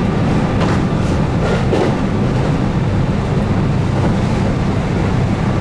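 Keihan 8000 series electric train running, heard from inside the car: a steady, heavy rumble of wheels on rail with its DC traction motors, and a few faint knocks.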